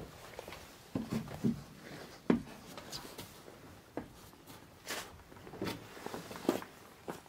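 Irregular footsteps and knocks on a wooden attic floor, one sharp knock roughly every second.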